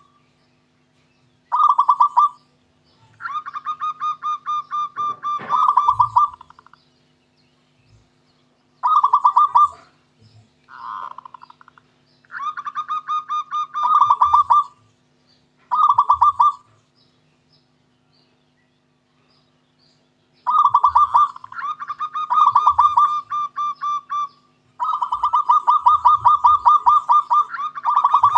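Zebra dove (perkutut) cooing: repeated bouts of fast, evenly pulsed staccato notes, each phrase lasting one to three seconds, with short pauses between them and a longer pause past the middle.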